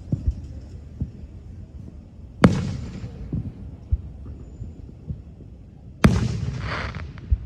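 Fireworks exploding: two loud booms about two and a half and six seconds in, each trailing off in a rumbling echo, with smaller distant pops between them.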